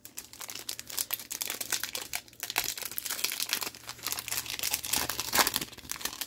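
Trading-card pack wrapper being torn open and crinkled by hand, a dense run of irregular crackles and rustles.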